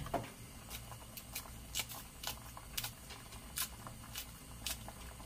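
Kitchen scissors snipping green chili peppers into a pot, a series of sharp clicks about two a second, with a faint low hum underneath.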